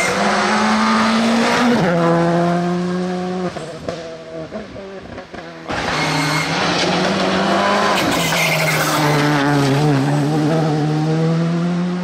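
Skoda Fabia R5 rally car's turbocharged 1.6-litre four-cylinder engine driven hard, with a gear change just under two seconds in and tyre noise on loose gravel. The sound fades briefly, then comes back loud about halfway through, the engine revving up and down.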